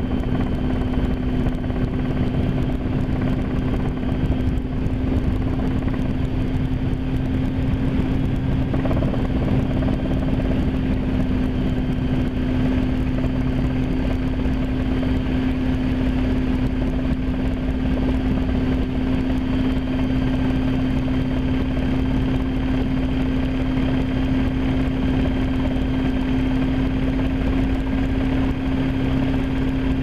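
Inside the cockpit of a RotorWay kit helicopter in flight: the engine and rotors make a steady drone with one strong humming tone over a low rumble, picked up through a camera housing that kept the mic from seating.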